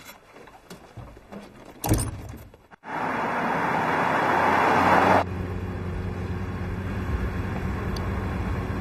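A sharp thump about two seconds in. Then an SUV drives by, its engine and tyre noise growing louder for about two seconds. It cuts off suddenly to the steady low drone of the engine heard from inside the car's cabin.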